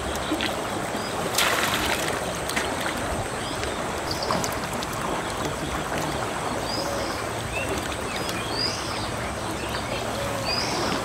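Water splashing and dripping as fish are shaken out of a bamboo lift net into a mesh keep net, with a brief louder splash about one and a half seconds in. Small birds chirp now and then in short, high, falling calls.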